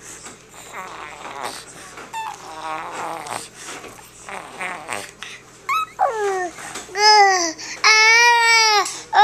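Infant vocalising: soft babbling and mouthing noises, then from about six seconds in a run of loud, high-pitched squeals, each rising and falling in pitch.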